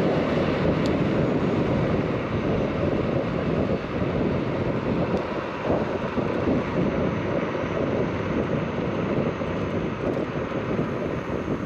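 Wind rumbling steadily on the microphone of a moving electric scooter, a dense low rush that eases slightly near the end.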